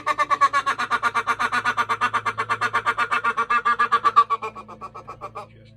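A sound-effect or music clip of rapidly repeated pitched notes, about nine a second, that fades out about four seconds in and stops shortly before the end.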